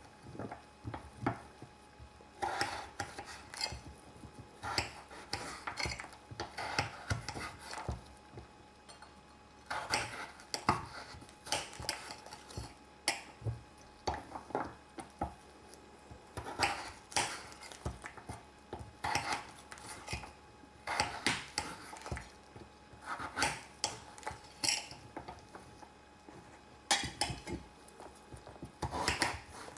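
Kitchen utensils clinking and scraping against cookware in short bouts every few seconds.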